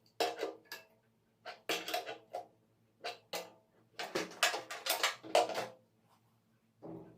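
Irregular clinks, knocks and scrapes of hard objects being handled, coming in short bursts with the densest run about four to six seconds in.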